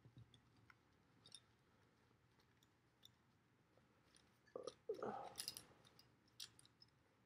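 Mostly near silence, with faint handling clicks as a small cloth drawstring bag is worked open. About four and a half seconds in comes a louder second-long cluster of rustling and clicking, the wooden clothespins inside knocking together.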